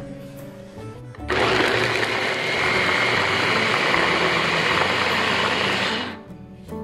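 Small electric food processor running for about five seconds, its blade whirring as it chops raw pumpkin pieces into fine shreds; it starts about a second in and cuts off near the end.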